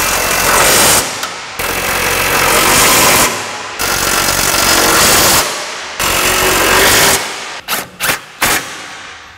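Cordless impact wrench hammering bolts tight: four long rattling runs of one to two seconds each, then three short bursts near the end.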